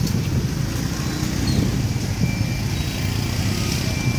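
Street traffic: motorbike and small-engine vehicles running past, a steady low rumble.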